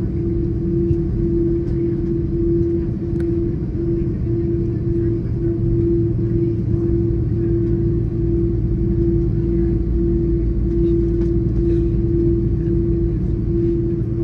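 Airbus A330-300 turbofan engines at taxi power, heard from inside the cabin over the wing: a steady deep rumble under a hum that pulses evenly, about one and a half swells a second.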